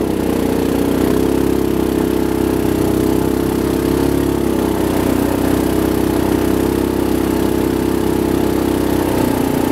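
Sport quad ATV engine running at a steady, low speed as the quad rolls along, its pitch holding nearly level with only slight rises and dips.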